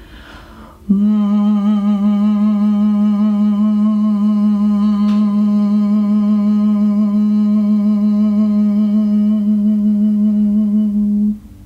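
A woman draws a breath, then hums one long steady note as vocal toning. She holds it for about ten seconds with a slight waver before it stops.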